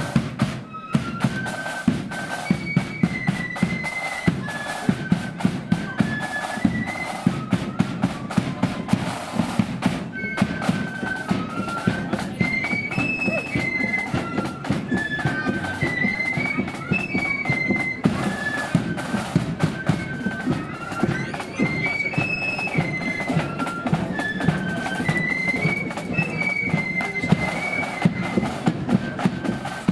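Marching flute band playing: a high flute melody over a steady beat of drums, the tune's phrase coming round again about every eight seconds.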